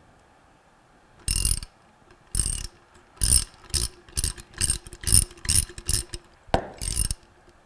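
Ratcheting box-end wrench clicking in short bursts as it backs the impeller nut off a pump shaft: two slow strokes, then a quicker run of about two strokes a second.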